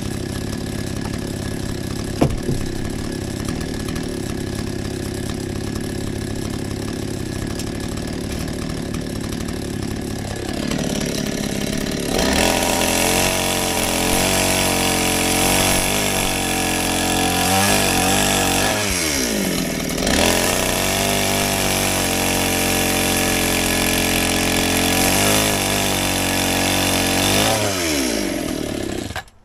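A Spear & Jackson SPJS4546 two-stroke petrol chainsaw idles steadily for about ten seconds, then revs up to full throttle and cuts through a log. Its engine speed drops and climbs again a few times during the cut. The engine stops abruptly near the end.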